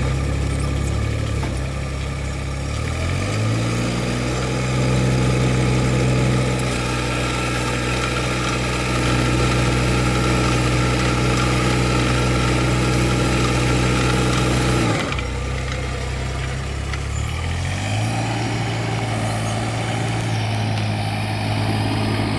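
Kubota U-17 mini excavator's diesel engine running. Its speed rises about three seconds in and holds steady, drops suddenly near fifteen seconds, then climbs again a few seconds later.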